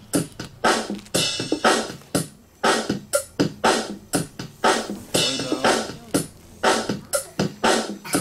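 A metal spatula clanking and scraping against a wok while stir-frying: a quick, uneven run of sharp clatters, about three a second, some with a short metallic ring.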